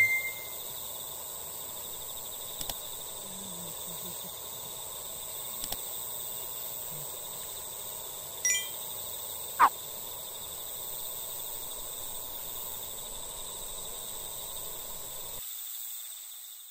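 Steady evening insect chirring, with a few faint clicks and a short chime about eight and a half seconds in. The sound fades out near the end.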